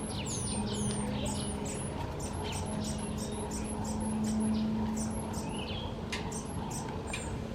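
Southern black flycatchers calling: a rapid series of very high, thin whistled notes, about three a second. A low steady hum runs underneath and swells near the middle.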